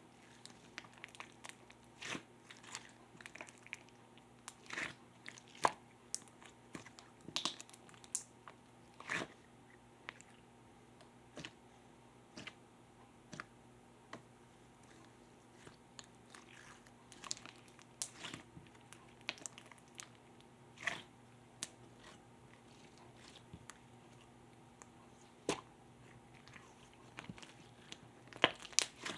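Purple pearl slime being squeezed and pressed by hand, giving irregular sharp clicks and small pops from trapped air.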